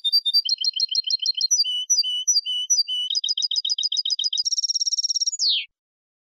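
European goldfinch (jilguero) singing clean Malaga-style contest song: a run of short phrases, each a note repeated several times, that speed up into a very fast buzzy trill and end in a falling slur. The song cuts off about five and a half seconds in.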